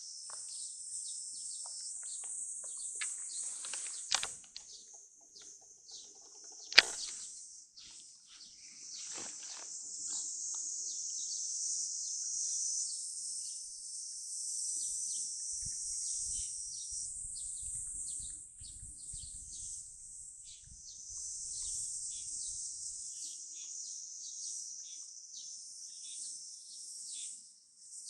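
A steady, high-pitched shrill chorus of insects singing. Two sharp knocks cut through it, about four and seven seconds in, and the second is the loudest sound.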